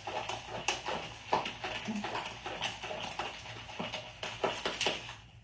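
A spatula stirring a gritty paste of sugar, coconut oil and crushed candy cane in a plastic tub, making irregular scrapes and clicks against the container.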